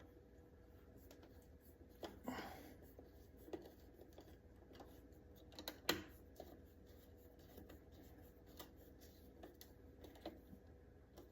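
Faint, scattered clicks and scrapes of a Phillips screwdriver and screws being fitted into an electrical outlet's wall-plate bracket, with sharper clicks about two and six seconds in.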